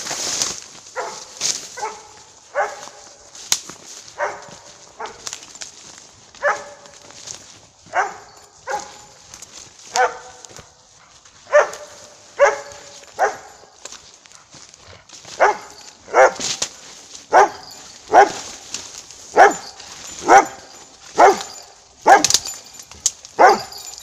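Airedale terrier barking steadily, single barks about once a second, growing louder in the second half. It is a search-and-rescue dog's bark alert, kept up beside a hidden person it has found.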